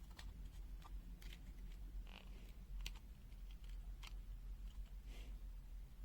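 Faint, irregular clicks and taps of small hard objects being handled, a dozen or so at uneven spacing, over a steady low hum.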